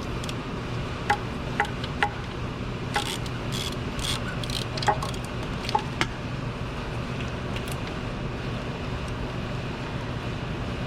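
Scattered sharp metallic clicks and clinks of a hand wrench working the 10 mm nut on the alternator's power terminal, with a few scraping rustles in between. A steady low hum sits underneath.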